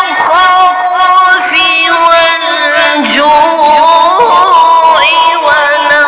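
A male qari reciting the Quran in a melodic, drawn-out style, holding long notes with wavering ornaments and sliding pitch between phrases.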